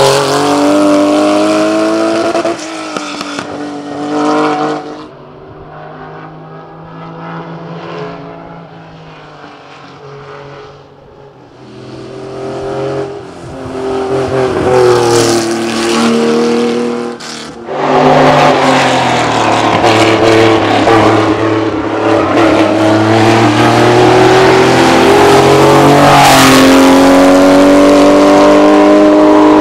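The air-cooled flat-six of a Porsche 911 2.3 ST racing car, revving hard under acceleration, its pitch climbing and dropping back with each gear change. The engine fades off into the distance partway through, then grows loud again as the car comes close.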